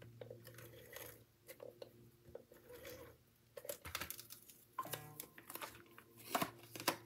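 Tape runner rasping as it lays adhesive on a strip of cardstock, with crackles and clicks of paper being pressed down and handled, the sharpest near the end.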